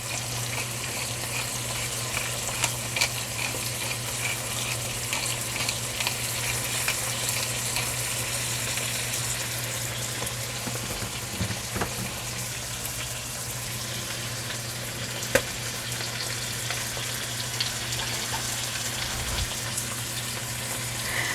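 Chicken liver sizzling as it fries in a pan with onion, garlic and ginger, with a steady crackle and a few sharp clicks. A steady low hum runs underneath.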